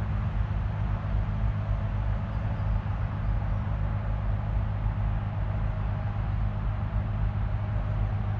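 Steady low rumble of road noise from moving vehicles, an even drone of tyres on tarmac with no sharp events.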